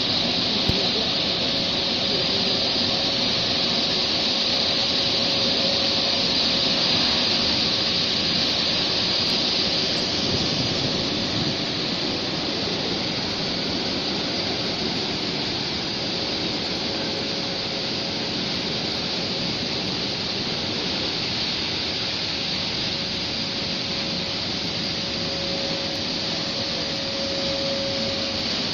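PE T9 nine-brush tunnel car wash running: water spraying from the nozzles in a steady, loud hiss, with a faint steady machine whine underneath.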